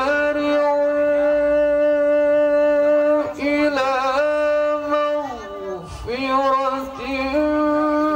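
A male Qur'an reciter's voice in melodic tilawah into a handheld microphone, holding long, drawn-out notes with wavering ornaments. There is a short break about three seconds in, and a falling phrase and pause a little past the middle before the next held note.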